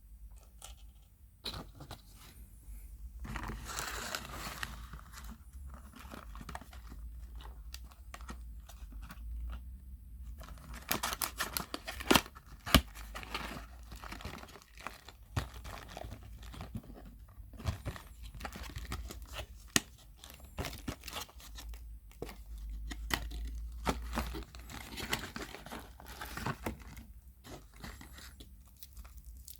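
Wrapper crinkling and tearing by hand as surprise eggs are unwrapped and opened, with irregular small clicks and a few louder snaps about eleven to thirteen seconds in.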